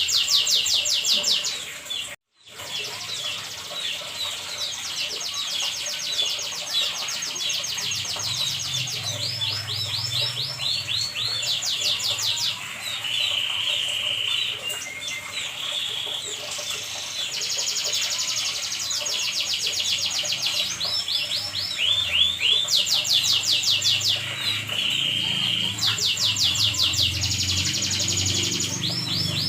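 Domestic canary singing continuously: fast trills of rapidly repeated notes, long rolls and short falling phrases. The song breaks off for a moment about two seconds in.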